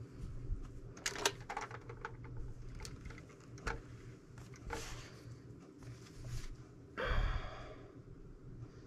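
Fabric being pressed with an iron: a few light clicks and knocks as the iron and fabric are handled, then a short hiss about seven seconds in, over a faint steady hum.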